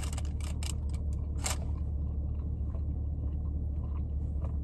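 A person chewing a mouthful of sausage breakfast burrito, with a few sharp mouth clicks in the first second and a half and fainter ones after. Under it runs a steady low hum inside a car.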